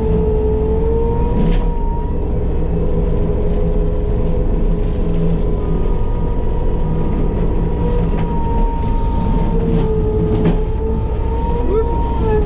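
Case TV450 compact track loader running a Fecon forestry mulching head at full speed: a steady high whine over a deep rumble, its pitch dipping briefly a few times.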